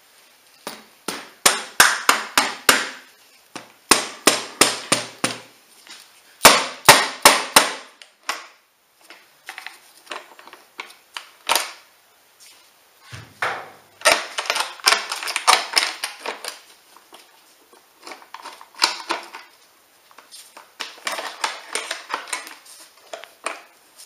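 Rubber mallet striking the valve cover of a Duratec 2.3 four-cylinder engine in quick runs of sharp blows, several a second, with short pauses between runs. The blows are knocking the cover loose so it can be lifted off.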